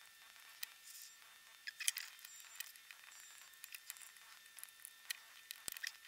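Faint scattered clicks, taps and light rustles of fingers handling the opened MP3 player's small case and circuit-board parts.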